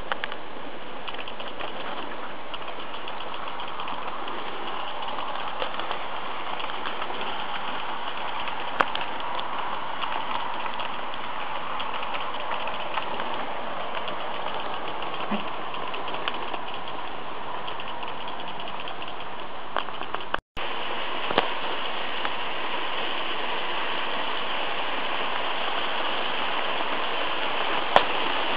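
Märklin model trains running on their track: a steady whir of the motors with fine rattling of the wheels on the rails. Sharp clicks come about 9, 21 and 28 seconds in, and there is a brief gap about two-thirds of the way through.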